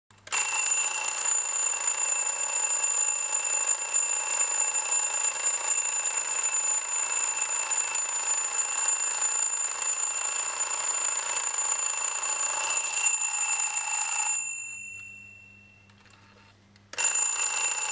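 Twin-bell alarm clock ringing, its hammer striking the two metal bells in a steady ring for about fourteen seconds. The ringing then fades away over a couple of seconds and starts again abruptly near the end.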